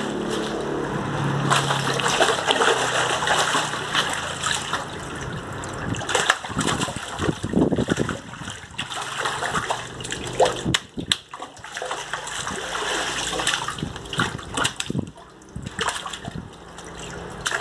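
Water splashing and sloshing irregularly as fish thrash in a framed hand net held at the surface of a fish tank, with sharp slaps of water and hands working among them.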